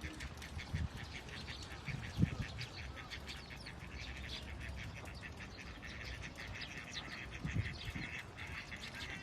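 Birds chirping rapidly, many short calls overlapping without pause, with a few low thumps, the loudest about two seconds in.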